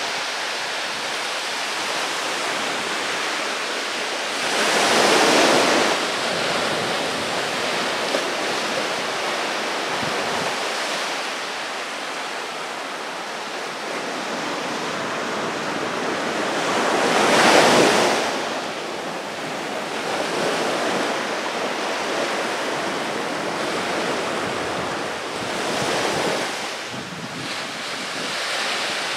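Small waves breaking and washing up a sandy beach: a steady hiss of surf, with louder breakers swelling and fading about five seconds in, around seventeen seconds, and again near the end.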